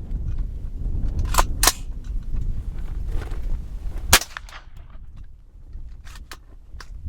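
Daniel Defense AR-15 in 300 Blackout firing Gemtech subsonic rounds: a few sharp cracks with smaller clicks of the action between, the loudest crack about four seconds in, over a low rumble. The load cycles the rifle's action only two times in four.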